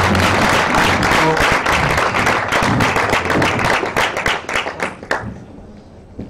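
Audience applauding; the clapping thins out to a few separate claps and stops about five seconds in.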